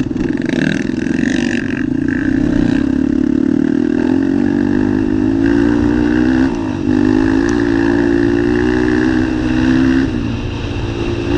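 ATV (quad) engine running under throttle, its pitch rising and falling slowly, with a brief drop in revs about six and a half seconds in.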